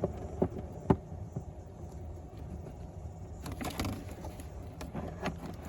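Cheap diesel heater's intake fan running with a steady low hum, over sharp clicks, knocks and a short rattle of the heater's casing parts being handled and fitted back on.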